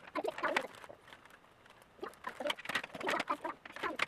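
Scissors snipping through plastic toy packaging, with crinkling and a series of short, irregular clicks and rustles.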